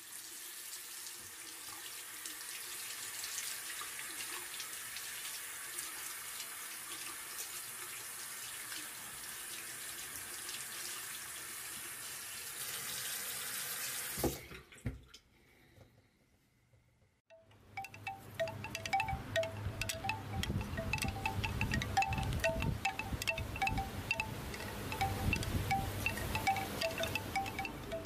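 Water running from a bathroom sink tap in a steady rush, stopping abruptly about 14 seconds in. After a short near silence, chimes ring in quick, irregular repeated notes over a low wind rumble.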